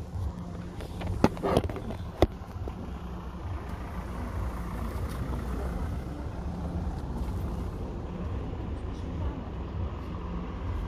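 Knocks and scrapes of a phone being handled and set down: three sharp knocks in the first two and a half seconds. After that there is a steady low rumble.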